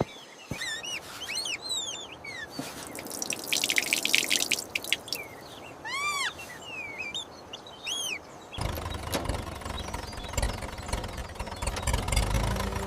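Birds chirping in short arched calls, with a dense high rattling stretch a few seconds in. Later a steady low engine-like rumble comes in and continues to the end.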